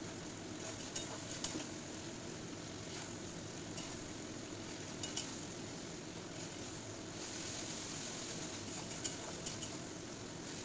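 Spice paste frying in a metal pan, sizzling steadily while a metal spatula stirs and turns it, with a few light clinks of the spatula against the pan. The masala is being sautéed down (kosha) in oil.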